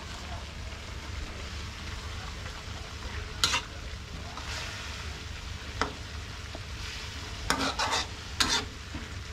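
Stir-frying in a metal wok: a steady sizzle of food cooking in the pan while a metal spatula scrapes against the wok. There is a sharp scrape about three and a half seconds in, another near six seconds, and a quick run of several scrapes near the end.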